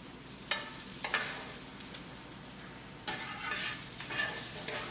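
Browned onions sizzling in a hot frying pan, with a spoon knocking against the pan twice and then scraping through the onions in a run of strokes about three seconds in.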